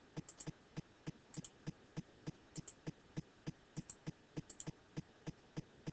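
Faint, very regular ticking, about three ticks a second, with a few pairs of light, sharper computer-mouse clicks among it.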